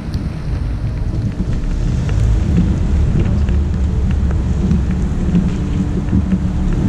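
Low, steady rumble of wind buffeting the microphone of a camera mounted on the outside of a moving car, with the car's engine and tyres on wet pavement underneath. It gets a little louder about two seconds in.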